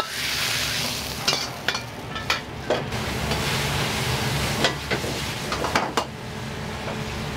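Food frying in a wok with a steady sizzle, while a metal ladle strikes and scrapes the wok in a series of sharp, irregular clanks.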